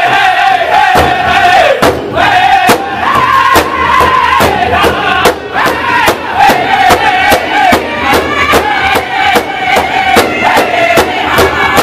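Powwow drum group: several men singing together in high voices around one large powwow drum, which they all strike in unison with drumsticks in a steady, even beat.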